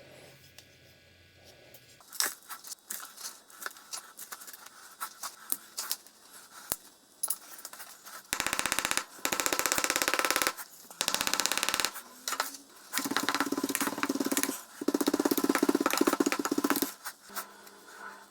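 Metalworking shop tool noise: scattered clicks and knocks, then a loud, fast rattling buzz from a tool running in four bursts of one to two seconds each.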